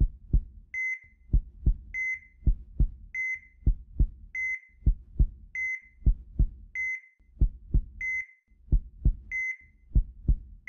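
A steady heartbeat, each lub-dub double thump followed by a short high beep of a hospital heart monitor, repeating about once every 1.2 seconds.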